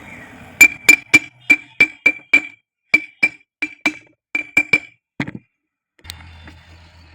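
A series of sharp, ringing metal taps, like a hammer striking a metal pump part, about three a second with a short pause in the middle. The tapping stops abruptly a little after five seconds in.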